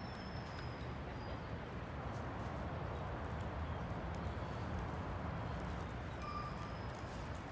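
Steady outdoor background noise with faint crunching of footsteps and dog paws on wood-chip mulch, and a couple of brief faint high chirps near the start and about six seconds in.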